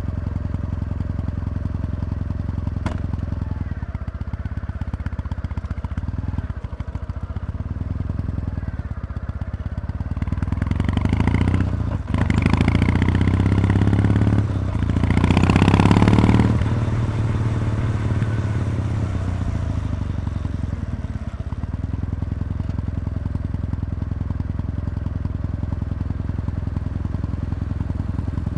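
Kawasaki W800's air-cooled parallel-twin engine through stock mufflers with the baffles removed: a steady low exhaust rumble that rises in revs twice a little before halfway, loudest a little past halfway, then settles back to the steady rumble.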